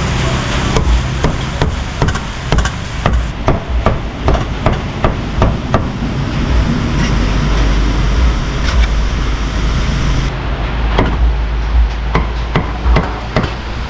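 Meat cleaver chopping roast beef on a thick round wooden chopping block: a run of sharp knocks, about two to three a second, easing off midway and picking up again near the end, over steady low background noise.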